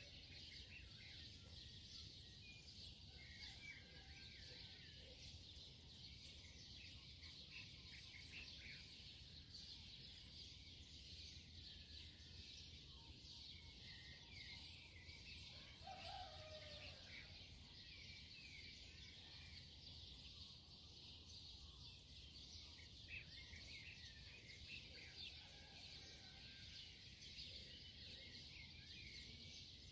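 Near silence: faint birds chirping here and there over a steady high hiss.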